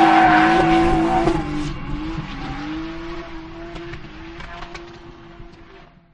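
Drift car's turbocharged 2JZ-GTE straight-six held at high revs, its pitch wavering, with tyres squealing as the car slides on gravel. The sound fades out steadily to silence near the end.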